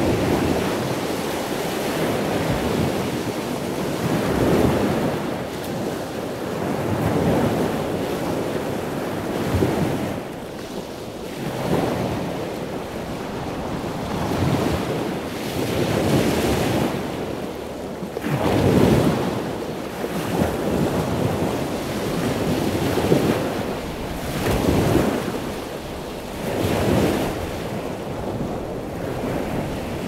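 Ocean surf: waves breaking and washing up the beach one after another, the rush of water swelling and easing every couple of seconds.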